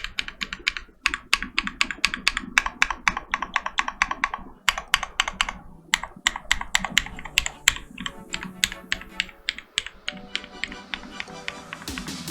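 Fast typing on a custom mechanical keyboard with NovelKey Cream switches and a brass plate: a dense run of clacky keystrokes with a short pause about halfway. Electronic music fades in under the typing over the last third.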